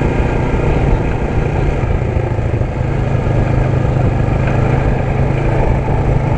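ATV engine running at a steady, unchanging pitch, a loud constant low drone.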